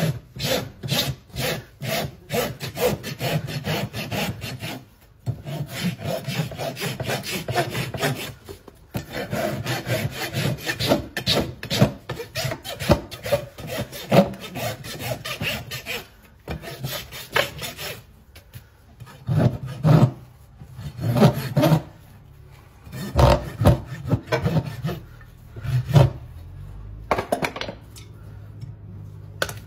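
Farrier's rasp scraping across a horse's hoof in rapid back-and-forth strokes, in runs several seconds long. In the second half the strokes come fewer and louder, with short pauses between them.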